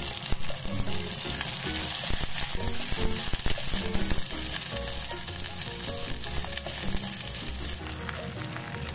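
Shallots, ginger, garlic and spring onion sizzling in hot oil in an enamelled cast-iron pot as they are stirred, with a few sharp clicks of the utensil. The sizzle drops off near the end. Soft background music plays underneath.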